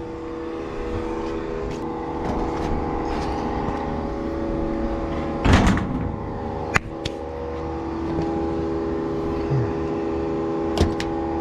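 A machine running with a steady, even hum, broken by a loud short clatter about five and a half seconds in and sharp metallic clicks about seven and eleven seconds in.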